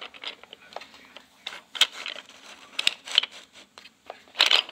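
Wooden toy train engine and car being handled on a toy railway turntable: a scatter of light clicks and knocks, busiest about a second and a half in and again near the end.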